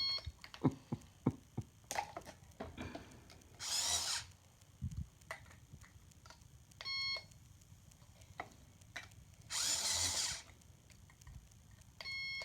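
Toy cash register in use: small plastic clicks and knocks of buttons and handling, short electronic beeps three times, and two brief whirring, hissing noise bursts from the toy's sound effects.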